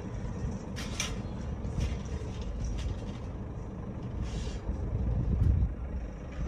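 Continuous low rumbling noise, with a couple of brief rattles and scrapes, about a second in and again about four seconds in, as a wire-mesh cage trap is handled.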